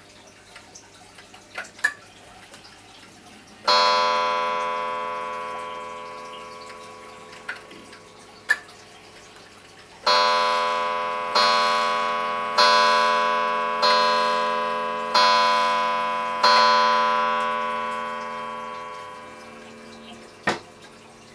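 Vintage 'President' 31-day pendulum wall clock striking on its chime: one ringing strike, then about six seconds later six strikes a little over a second apart, each ringing on and fading, counting the hour of six. Near the end comes a sharp knock as the glass case door is shut.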